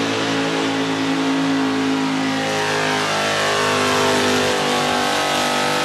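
Lifted pickup truck's engine running hard under load, its pitch rising as it revs higher about two to three seconds in.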